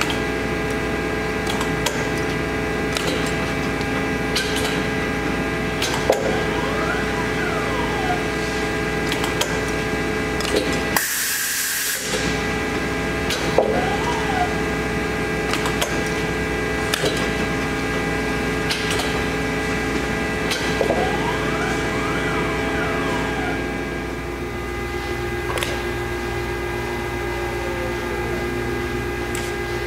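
Roper Whitney CNC autobrake folder running: a steady hum of several tones, with motor whines that rise and fall several times and occasional clicks as the backgauge and bending beam are driven to new positions. Near the end the hum drops to a lower, steadier level.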